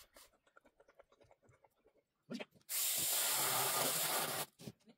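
Aerosol spray can discharging in one continuous hiss of about two seconds, starting a little past halfway and cutting off sharply.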